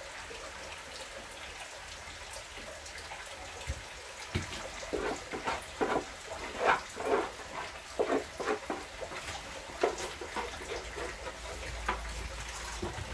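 Water running from a kitchen tap, a steady hiss. About four seconds in it is broken by many short, irregular sounds.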